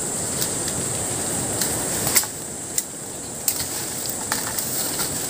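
Rustling and scraping of dirt as hands and a small tool dig into a burrow, with a few sharp clicks, the strongest a little after two seconds in. A steady high-pitched insect buzz runs behind it.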